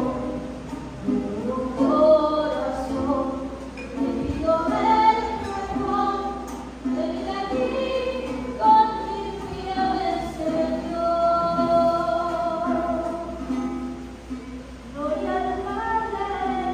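Voices singing a church hymn with guitar accompaniment, in continuous sung phrases; at this point in the Mass it is the communion hymn.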